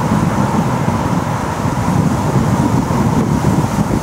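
Wind buffeting the microphone: a steady, loud noise that is heaviest in the low end.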